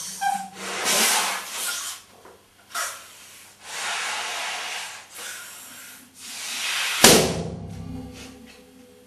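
A large latex balloon being blown up by mouth: long puffs of breath into it with short pauses between, until it bursts with a single loud pop about seven seconds in.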